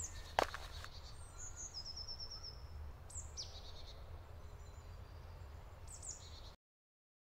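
Small forest birds chirping high, with a short run of quick repeated notes about two seconds in, over a low steady rumble. One knock just after the start; all sound cuts off suddenly near the end.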